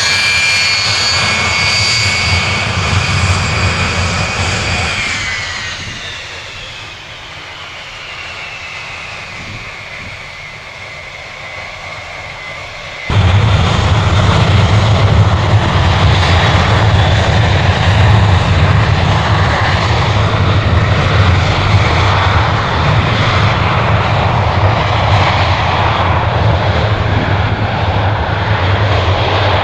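Jet engines of a Boeing C-17A, four Pratt & Whitney F117 turbofans, landing: a high engine whine that falls in pitch about five seconds in as the noise fades. About thirteen seconds in the jet noise returns abruptly and loud, with a strong low rumble, and holds steady.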